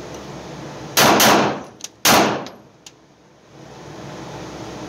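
Three 9mm pistol shots from an Arex Delta L Gen 2 drawn from a holster. Two come in quick succession about a second in, and the third follows about a second later, each with a short ringing tail.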